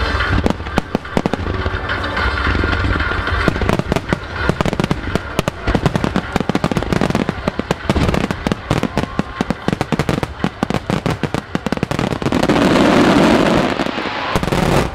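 Starmine fireworks barrage: rapid, overlapping shell bursts going off many times a second. Near the end, a loud continuous rush of noise takes over for a couple of seconds before a last burst.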